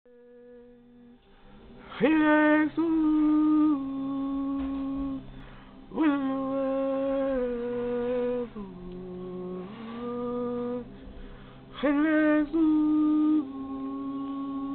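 A voice singing a slow chant in long held notes. Each phrase opens with a quick upward scoop and then steps down through a few sustained pitches, with new phrases starting about two, six and twelve seconds in.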